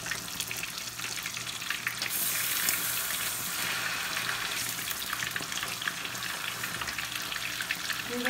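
Thin slices of beef steak sizzling and crackling as they fry in hot butter and oil. The sizzle grows louder for a couple of seconds, about two seconds in, as another slice is laid into the pan.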